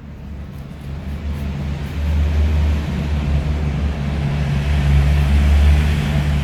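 A motor running with a steady low rumble that grows louder over the first two seconds and then holds.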